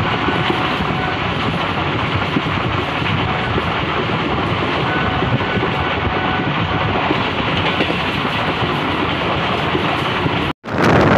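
Moving passenger train heard from inside the coach: the steady running rumble and rattle of the wheels on the track. About ten seconds in, it cuts out for a moment and comes back louder.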